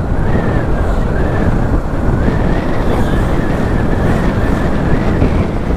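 Motorcycle running at road speed: a steady rush of wind noise on the rider's helmet-mounted microphone over the engine.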